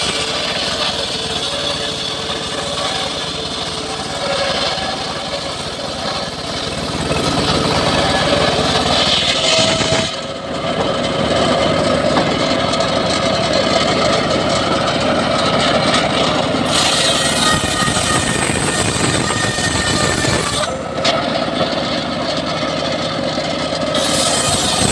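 Homemade circular saw bench running, its large blade ripping a mahogany log lengthwise into planks. The noise is loud and steady, with short dips about ten seconds in and again about twenty-one seconds in.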